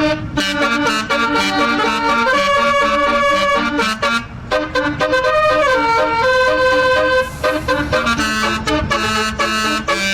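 Basuri telolet multi-tone bus horn playing a melody: a run of held notes stepping up and down in pitch, with one smooth slide down around the middle.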